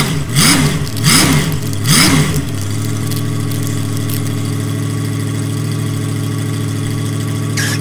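Monster truck engine revving three times in quick rise-and-fall revs, then settling into a steady idle.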